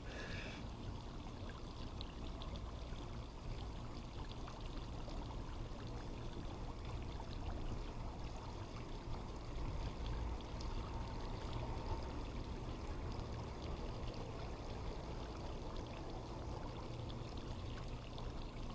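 Swimming pool water sloshing and trickling steadily, with small splashes.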